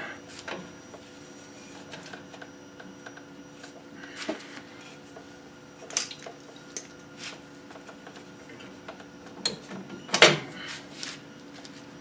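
Scattered metallic clinks and scrapes of rear drum-brake hardware (adjuster, springs, shoe) being worked by gloved hands, with one sharper clank about ten seconds in. A faint steady hum runs underneath.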